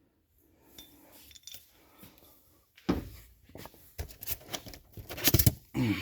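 Parts and packaging being handled while unboxing a jack: rustling, with scattered clicks and knocks. There is a knock about three seconds in and a quick run of clicks, the loudest, about five seconds in.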